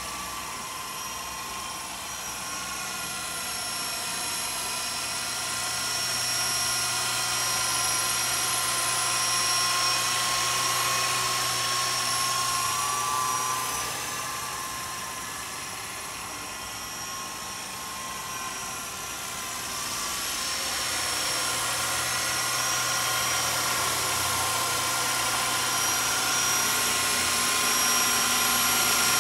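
Walkera Lama 400 electric RC helicopter in flight, a steady whine of its motor and rotor blades that swells and fades as it moves about, quietest a little past halfway and louder again near the end.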